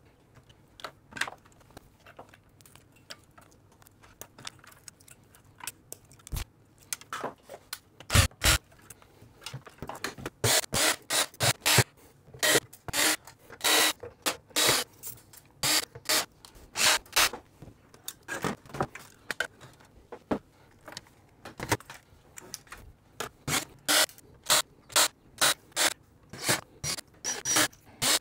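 Screwdriver and hands working screws and parts out of a steel 1U server chassis: a string of short scrapes and clicks, sparse at first and coming thick and fast from about a third of the way in.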